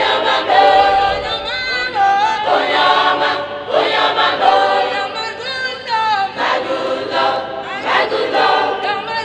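A choir singing a cappella: several voices together in short sung phrases, with no instruments.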